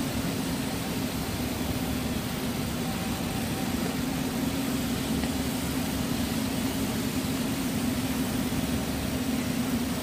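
Rubber hose extrusion line and coiling turntable running: a steady machinery drone with a constant hum.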